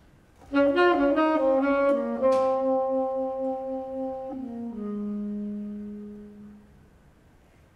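Tenor saxophone playing a solo jazz ballad phrase: a quick run of notes, a held note with vibrato, then a step down to a long low note that fades away.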